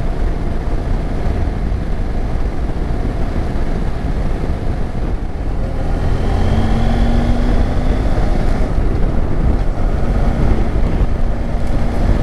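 Motorcycle on the move: a steady rumble of wind and engine picked up by a handlebar-mounted camera, growing louder about halfway through.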